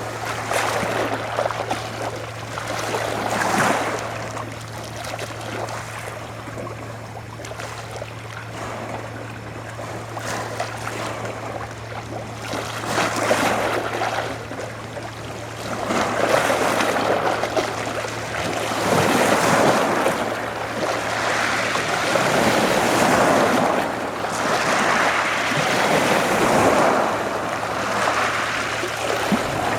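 Small sea waves washing onto the shore in repeated surges every two to three seconds, growing louder in the second half. A steady low hum runs underneath and stops about two-thirds of the way through.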